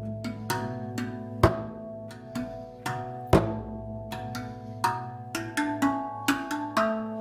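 Hand-played RAV Vast steel tongue drum (B Celtic scale): a run of struck notes that ring on and overlap. It is punctuated by a few deep, booming beats on a hide shamanic frame drum tuned to the same key, the loudest about a second and a half in and just past three seconds.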